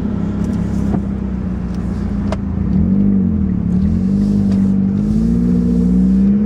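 Turbocharged car with a leaking exhaust driving, heard from inside the cabin. The engine note rises and falls briefly about three seconds in, then holds steady. The exhaust is broken at the down-pipe flange.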